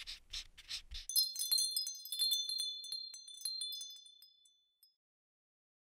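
Logo sound effect: a few soft brush-stroke swishes, then about a second in a cascade of high, tinkling wind-chime strikes that ring on and fade away.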